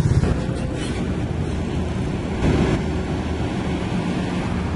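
Heavy-haul truck and multi-axle lowboy trailer passing close by: a steady rush of tyres on the road over a low diesel rumble, with a brief louder swell about two and a half seconds in.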